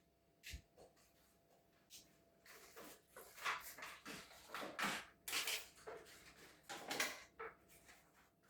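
Household handling sounds: a soft knock, then several seconds of irregular rustling, clicking and light clattering of objects being moved about.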